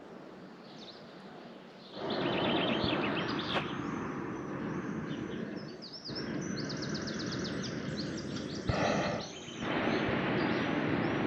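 Small birds chirping in quick repeated phrases over a steady rushing background noise, which cuts in and out abruptly, with a brief louder rush about nine seconds in.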